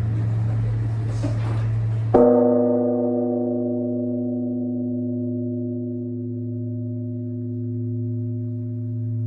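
Japanese temple bell (bonshō) struck once about two seconds in, then ringing on with several steady tones over a deep hum, slowly fading.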